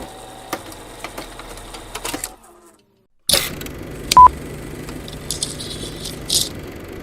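Old-film sound effects: a clattering, crackling mechanical texture like a running film projector, which drops out for about a second and starts again with a low steady hum. A short, loud, high beep sounds once, a little after four seconds in.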